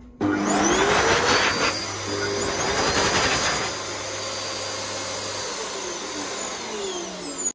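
World Dryer Airforce high-speed hand dryer starting suddenly and blowing hard, with its motor whine rising in pitch as it spins up. After about three and a half seconds it gets quieter and runs steadily, and its whine falls in pitch near the end.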